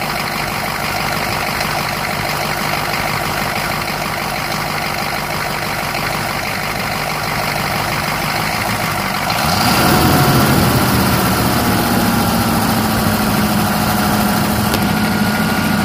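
A 1984 GMC's 6.2-litre V8 diesel idling steadily. About nine seconds in it gets louder and its pitch climbs gradually, settling at a higher, steady engine speed.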